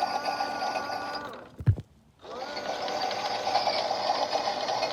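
Small electric motor of a toy washing machine whirring steadily. It winds down and stops about a second and a half in, with one low thump while it is off, then spins back up about a second later and runs on.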